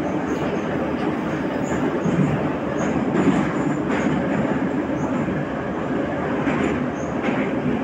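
Metro train running, heard from inside the car: a steady rumble of wheels on the rails with occasional faint clicks.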